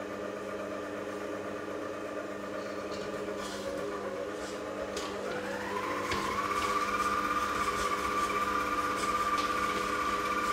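Electric stand mixer running steadily as it mixes cookie dough. Its motor whine rises in pitch about five to six seconds in as the speed goes up, then holds at the higher pitch.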